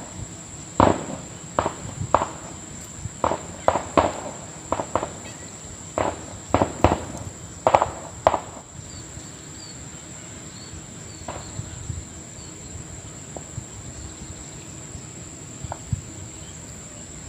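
Handmade QIN QIN topwater wiggling lure splashing and plopping on the water surface as it is twitched in: a quick, irregular run of short splashes for the first eight seconds or so, then only one or two. A steady high insect drone runs underneath.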